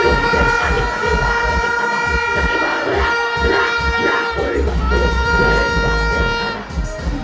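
Plastic crowd horn (vuvuzela-type) blown on one long steady note, cutting off about six and a half seconds in, over thumping bass of dancehall music and crowd noise.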